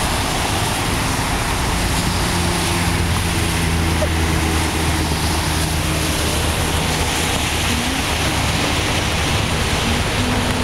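Cars wading slowly through knee-deep floodwater: a steady rush of water pushed up by the tyres, under a low, steady engine hum that fades after about seven seconds.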